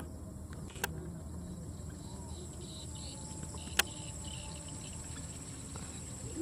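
Steady high-pitched insect chirping, with one sharp crack nearly four seconds in from a PCP air rifle firing, and a fainter click about a second in.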